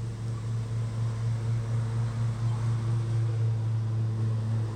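A steady low machine hum with a light hiss underneath.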